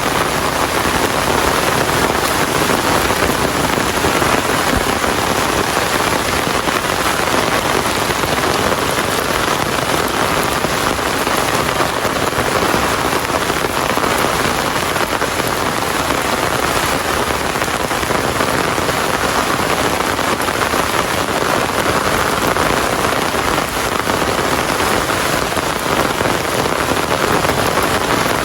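Steady rain falling and pattering on surfaces, an even hiss without breaks.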